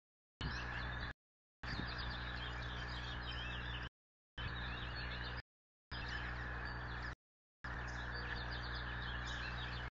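Steady electrical hum and hiss from the nest-cam microphone, with small birds chirping faintly in the distance. The audio drops out to silence five times, about half a second each.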